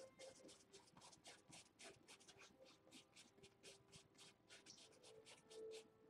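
Faint scratching of a fine paintbrush stroking across canvas: quick short strokes, about five a second, stopping near the end.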